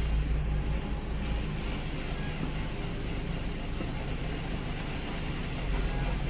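A 2012 Ford Fusion's engine running steadily with a low hum. The engine has been logging random misfires on cylinders 1 and 2.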